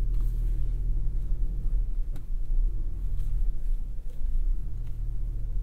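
Low, steady rumble inside the cabin of a 2024 GMC Canyon AT4X AEV crawling slowly off-road, its 2.7-litre turbocharged inline-four running under light load. A single click comes about two seconds in.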